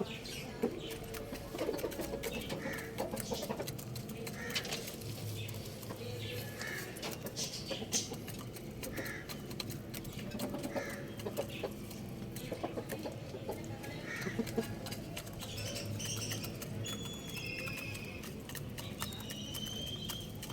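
Chickens, roosters among them, clucking and calling in short scattered bursts. Thin whistled chirps from other small birds come in near the end.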